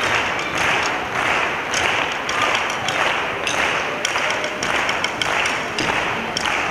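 Audience clapping in unison to a steady beat of about two claps a second.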